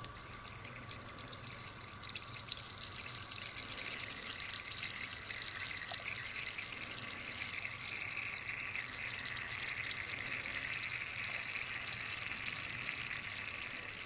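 Thin jets of water falling from hypodermic needles into the collecting cans of a Kelvin water dropper, a steady hiss and patter that builds over the first couple of seconds, then holds.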